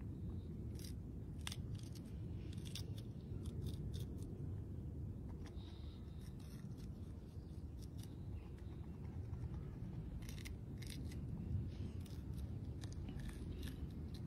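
Rhesus macaque eating pea pods and fruit: clusters of crisp snaps and crunches from about a second in and again from about ten seconds in, over a steady low background rumble.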